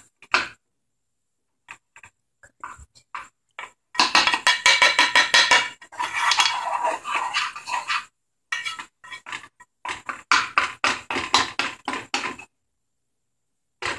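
A metal utensil scraping and clinking rapidly against a pan, several strokes a second, as butter is cut up and stirred while it melts. The strokes come in two runs with a short pause between.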